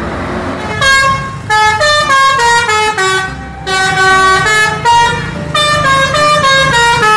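Tour bus musical 'telolet' air horn playing a tune of short notes that step up and down in pitch, starting about a second in, in three runs with brief breaks, over bus engine and traffic noise.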